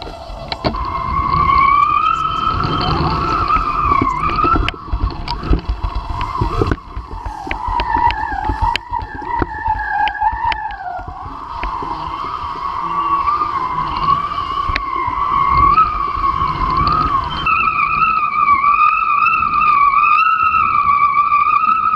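Wind and water rush during a kitefoiling ride, with a high whistle that wavers up and down in pitch throughout. About three-quarters through, the whistle turns steadier and louder. A few sharp clicks are scattered through.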